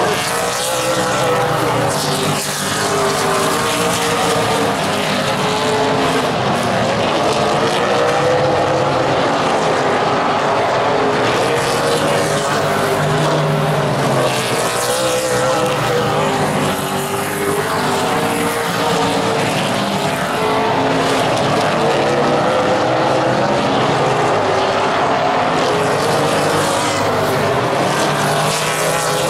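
Super late model stock cars racing on a short oval: several V8 engines run at once, their pitch rising and falling steadily as the cars circulate and pass.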